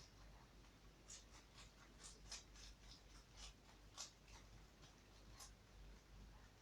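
Toy (dwarf) rabbit chewing lettuce: faint, quick, crisp crunches, several a second and irregular, with a couple of louder bites about two and four seconds in.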